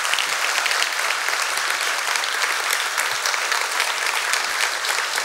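Large audience applauding, a dense and steady clapping.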